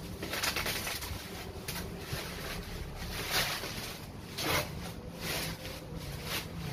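Packaging being handled during an unboxing: about six irregular rustling swishes over a steady low hum.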